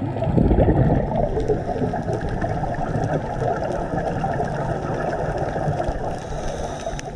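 Scuba divers' exhaled regulator bubbles rushing and crackling against an underwater camera, loudest in the first second and cutting off near the end.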